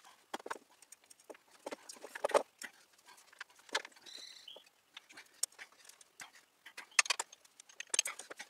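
Scattered light clicks and knocks as a starter motor is worked into place by hand against the bellhousing of a Ford flathead V8, with a brief high squeak about four seconds in.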